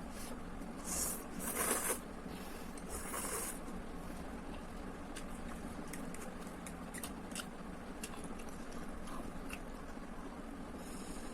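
A person eating instant tom yam noodles close to the microphone: a few short slurps in the first few seconds, then small wet chewing and mouth clicks over a steady low hum.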